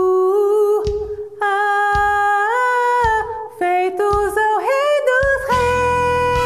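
A woman singing a soprano line in Portuguese, holding long notes that step up and down, over a backing track with a low drum beat about once a second. Near the end a sustained full chord swells in under the voice.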